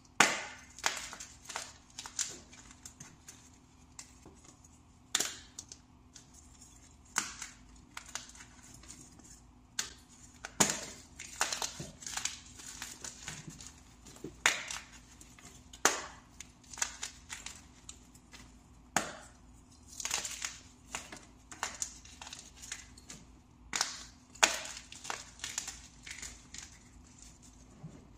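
Fresh plain powder blocks being crushed by hand: a long run of sharp, crisp crunches at uneven intervals, about one a second, each trailing off into a short crumble.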